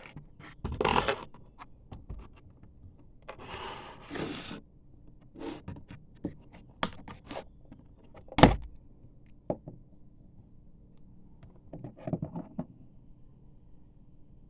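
Packaging and toy pieces being handled: brief rustles, scattered clicks and light knocks, and one sharp, louder knock a little past the middle.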